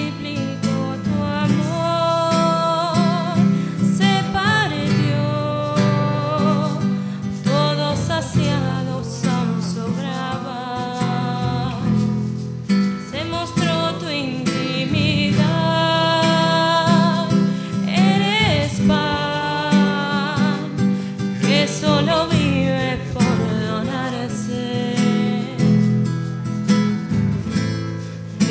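Live church music group performing an offertory hymn: acoustic guitar accompanying a sung melody with held, wavering notes.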